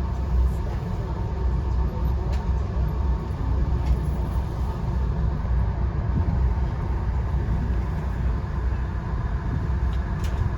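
Steady low rumble of a moving Via Rail passenger train, heard from inside the coach as it runs along the track.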